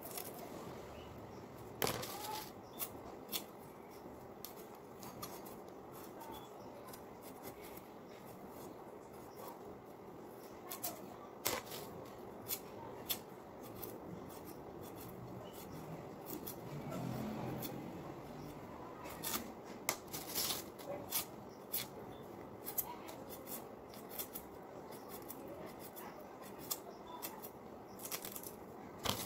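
Pointed gourd being sliced by hand on a boti, the curved floor-mounted kitchen blade: sharp, crisp cuts at irregular intervals over a low background hiss.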